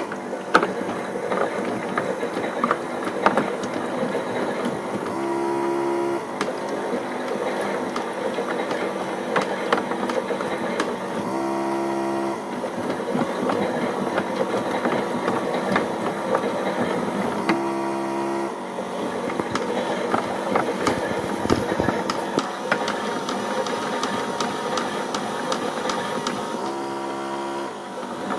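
Battery-powered Theo Klein toy Miele Novotronic washing machine running a wash, its small motor and plastic gears whirring and clicking steadily. A brief hum of about a second comes back four times, roughly every six seconds.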